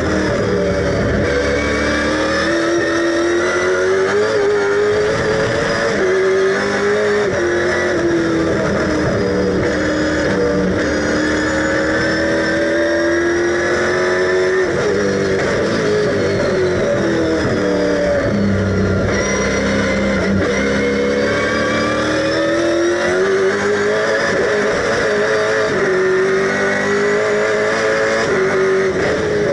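Super3 race car's V8 engine heard from inside the cabin at racing speed. Its pitch climbs under acceleration and drops back at gearchanges and braking, several times over.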